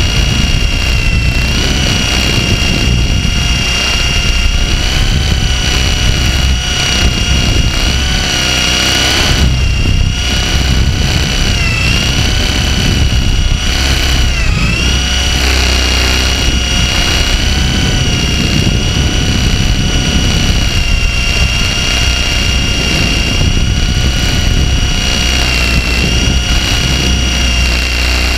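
RC helicopter's motor and rotors running in flight, heard up close from a camera mounted on the helicopter: a steady high whine over a low rumble, its pitch dipping briefly twice about halfway through.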